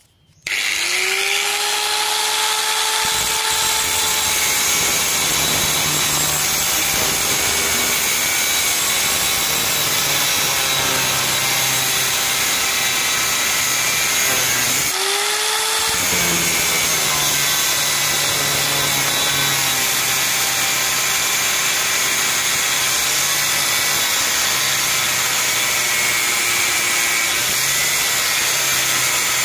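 Electric angle grinder with a cut-off disc cutting into a rusty steel truck leaf spring bar: the motor spins up about half a second in, then runs steadily with the disc grinding through the steel. About halfway the sound briefly drops and the motor winds up again.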